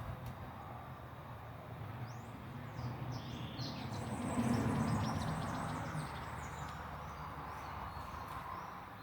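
Birds chirping several times, short rising and falling calls, over a low background rumble that swells and fades about halfway through.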